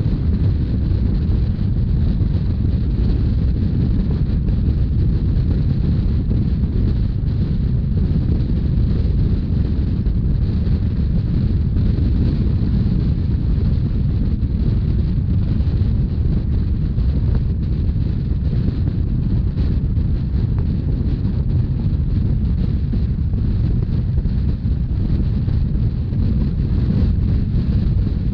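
Steady low rumble of a Rhaetian Railway narrow-gauge train running at speed, with wind buffeting the microphone.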